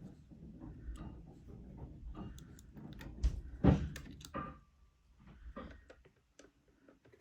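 Clicks and knocks of small parts being handled while a metal battery connection strip is bent and worked to break it off by hand, with a louder knock a little past halfway.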